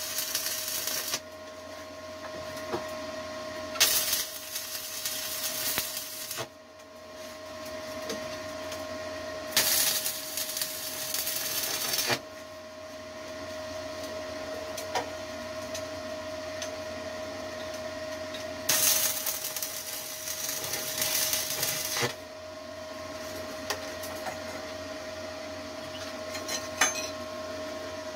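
Shielded metal arc (stick) welding on 1/8-inch steel plate, 6013 rods run at 75 amps on a Forney 100ST welder: four short bursts of arc crackle, each about three seconds, with pauses between them. A steady tone runs underneath throughout, and a few sharp clicks come near the end.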